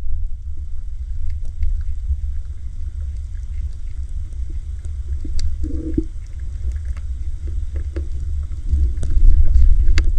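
A loud, uneven low rumble with scattered faint clicks over it, growing louder near the end.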